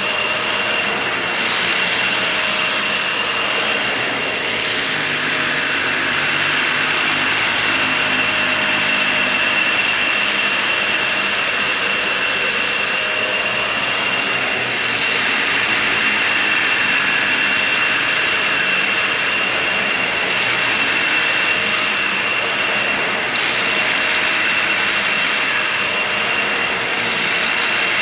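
Vacuum cleaner running steadily on a shaggy rug, a constant high whine over a rushing hiss, the level swelling and dipping slightly as it is worked back and forth.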